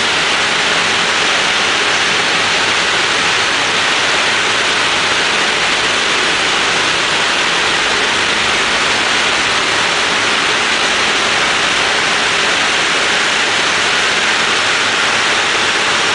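Loud, steady rush of wind and engine noise inside a B-17's fuselage in flight, with the bomb bay doors open; the four radial engines add a faint low hum under the wind hiss.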